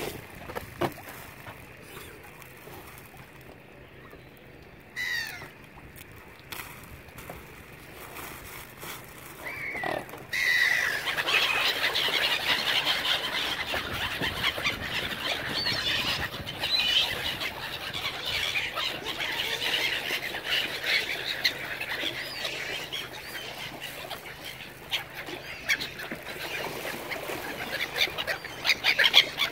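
A flock of waterbirds calling: a few single calls at first, then about ten seconds in a sudden dense chatter of many short calls that keeps going.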